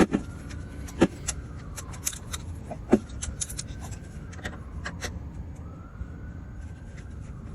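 Irregular metal clicks and taps of a ratchet and spark plug socket working a spark plug loose from a motorcycle engine, with the sharpest clicks at the start, about a second in and about three seconds in.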